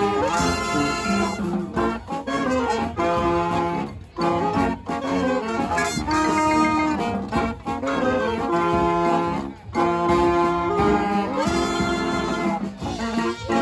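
Brass band playing live: several horns in a lively tune over a steady drum beat.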